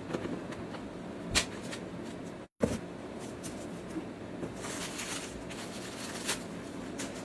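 A cardboard shoebox being handled and opened: a few sharp knocks and taps of the box and lid, and a short rustle of wrapping paper about five seconds in, over a steady low room hum.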